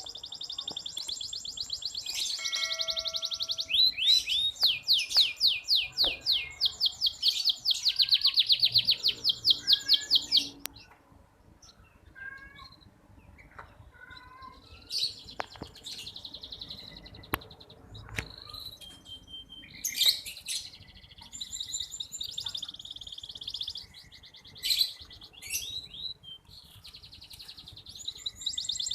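Red canary singing: long, rapid rolling trills and chirps for about the first ten seconds, then quieter, broken phrases of song with short pauses between them.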